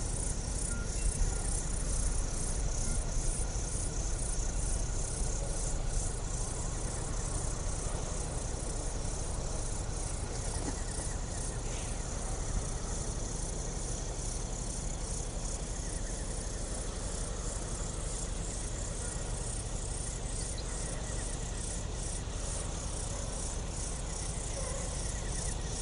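Insects chirping in a steady, high-pitched pulsing chorus of about three pulses a second, over a low, steady rumble.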